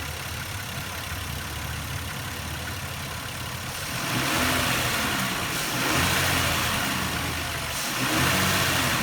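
2000 Nissan Maxima's V6 engine idling steadily, then revved up and let back down about three times in the second half.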